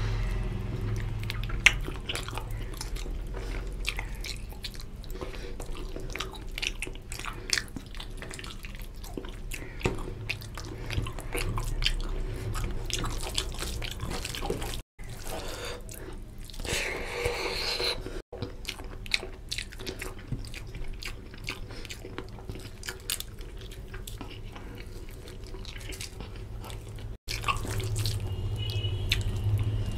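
Close-miked wet squishing and squelching of rice and oily mutton curry gravy being mixed and squeezed by hand, with chewing and many small wet clicks and lip smacks.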